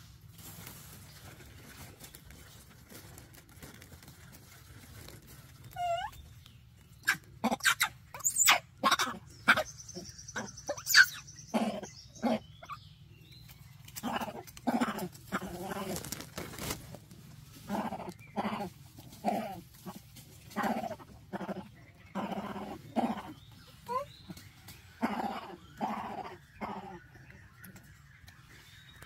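Repeated short, bark-like animal calls, roughly one a second, coming after a burst of sharper, shriller cries that starts about seven seconds in.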